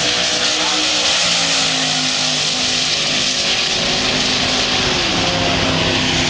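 Twin-turbocharged three-valve Ford V8 of a Fox-body Mustang drag car running flat out down the quarter mile. The engine note is loud and steady and steps down in pitch twice, about a second in and again about five seconds in.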